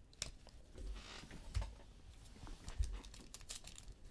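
Faint handling of trading cards and their foil pack wrappers: scattered light clicks, a short rustle about a second in, and two soft low thumps.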